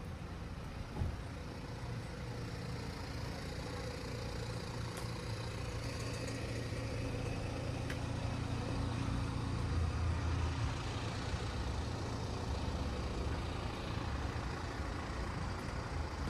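A motor vehicle's engine running with a steady low hum that grows somewhat louder toward the middle; a single short knock about a second in.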